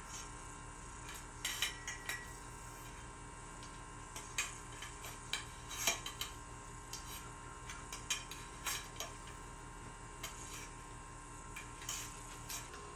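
Scattered light clicks and taps of curtain rod hardware being handled while a curtain is hung, over a steady electrical hum.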